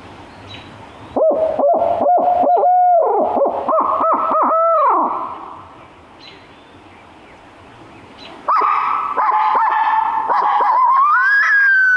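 Imitation barred owl hooting, a locator call sounded by a turkey hunter to make roosted gobblers shock-gobble. It comes in two rhythmic phrases, the first about a second in and the second past the middle. The second ends in a long note that rises and then slides slowly down.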